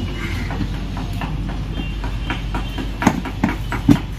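Motorcycle seat being pressed down and clicked into place on the frame: three sharp knocks and clunks close together near the end, over a steady low background rumble.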